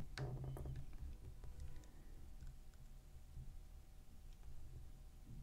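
Quiet room tone with a low steady hum and a few faint, short clicks scattered through it.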